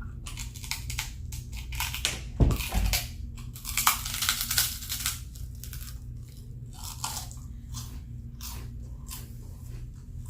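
Fried pork skins being bitten and chewed, a run of crisp crunches that is dense for the first few seconds and then thins out. Two dull low thumps come about two and a half seconds in.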